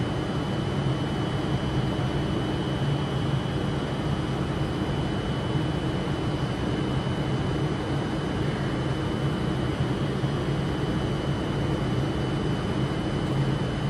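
Avanti West Coast train standing at the platform, its onboard equipment giving a steady low hum with a thin, constant high-pitched whine over it.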